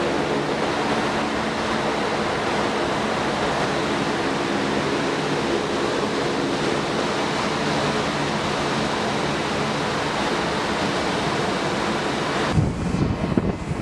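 LCAC hovercraft running its gas turbines and ducted propellers close by, a loud steady rush of engine and spray noise with a few steady hum tones in it. About a second before the end it cuts abruptly to gusty wind buffeting the microphone.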